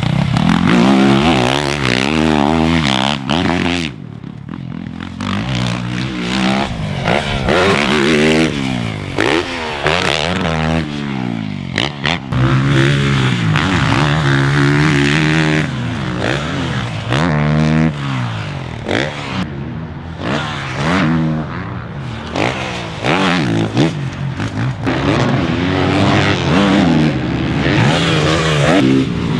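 Motocross bike engines revving hard and shutting off again and again, the pitch climbing as the throttle is held open and falling away when it is closed for jumps and corners.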